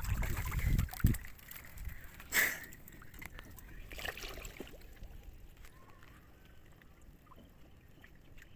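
Water sloshing and splashing as a person works waist-deep among the nets of a fish trap, with two sharp knocks in the first few seconds. The sound is a low rumble at first, then mostly small splashes and clicks.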